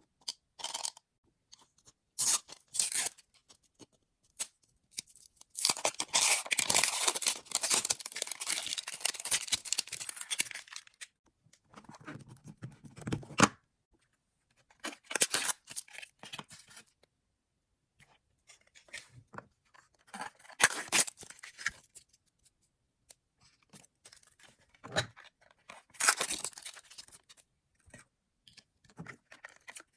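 Toy Mini Brands capsule and its wrappers being opened by hand: plastic packaging crinkling and tearing in bursts, the longest a stretch of several seconds about six seconds in, with short sharp clicks between.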